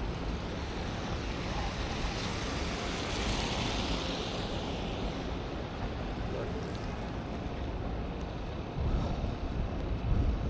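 Outdoor city street ambience: a steady rush of traffic and wind, swelling about three to four seconds in, with wind buffeting the microphone in low rumbling gusts near the end.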